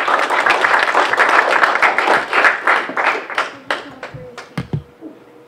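Audience applauding: a dense patter of many hands clapping that thins after about three seconds and dies away into a few scattered claps, with a couple of low thumps near the end.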